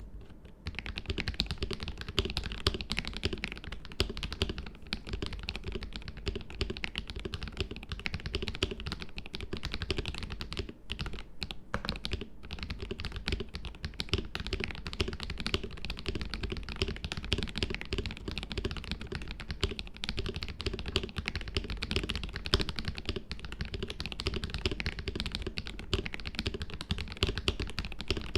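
Steady typing on a KBD67 Lite mechanical keyboard with a transparent ABS plastic case, KTT Strawberry linear switches lubed with Krytox 205g0, GMK Red Samurai keycaps and lubed Durock v2 stabilizers, in its stock build with case foam. Keystrokes come in a quick continuous stream, with a couple of short breaks a little before halfway. The builder finds the stock sound good but a little hollow.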